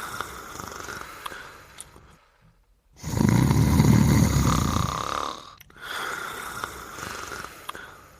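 Cartoon snoring sound effect in a repeating cycle. A loud, low rasping snore is followed by a softer breath out with a whistling tone, then a short pause before the next one.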